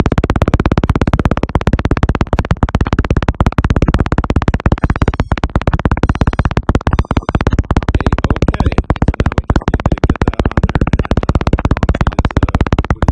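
Rapid, loud, rhythmic clicking chatter from a powered-on Funsnap Idol folding drone, which the owner puts down to its little sensor going nuts.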